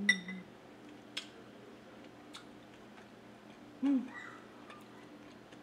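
A metal spoon clinks once against a glass bowl of soup just after the start, with a short bright ring. Around it come faint clicks of chewing and short closed-mouth 'mm' hums, one fading out at the start and another about four seconds in.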